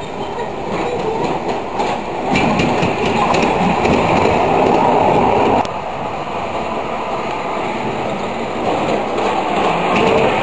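Ride-on miniature railway train running along the track: a steady rumble of wheels on rail with some clicking. It is louder in the middle and drops off suddenly a little past halfway.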